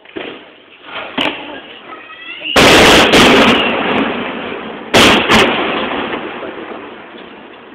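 Daytime aerial fireworks bursting overhead. Two smaller bangs come first, then a very loud cluster of blasts about two and a half seconds in and two more about two seconds later, each trailing off in a long rolling echo.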